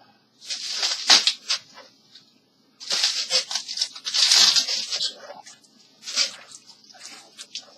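Packaging rustling and crinkling in several bursts as it is handled, with a few light clicks in between.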